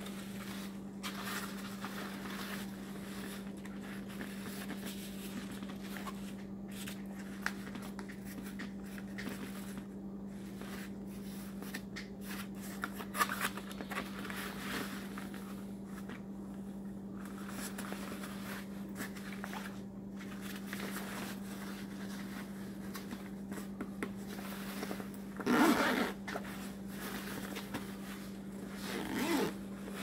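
Zippers and Oxford fabric of a laptop backpack being handled: scratchy rustling and zipping, with two louder zip strokes near the end. A steady low hum runs underneath.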